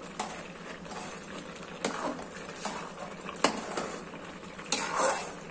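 Metal spatula stirring a thick mix of grated carrots and milk in an aluminium kadhai, scraping the pan with a sharp knock against the metal every second or so. The milk powder is being mixed in.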